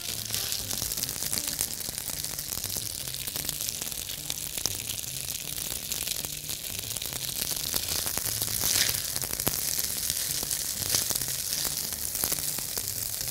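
Steady sizzling of spaghetti in a hot nonstick frying pan, with scattered light clicks of metal tongs against the pan and plate.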